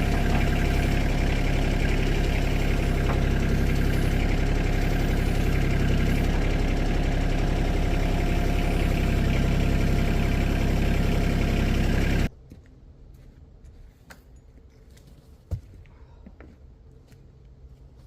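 An engine running steadily, which cuts off abruptly about twelve seconds in; a single short thump follows a few seconds later.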